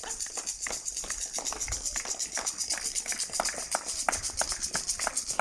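Scattered, irregular hand clapping from a few people some way off, several claps a second out of step with each other, over a steady high hiss of rain.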